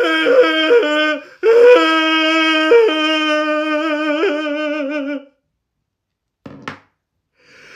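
A high voice wailing in long held notes that waver slightly and step up and down between a few pitches, like a yodel, breaking off about five seconds in. A short tap follows near the end.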